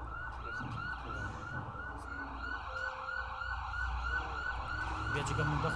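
An emergency-vehicle siren sounding in a rapid yelp, its pitch rising and falling about four times a second, over a low rumble.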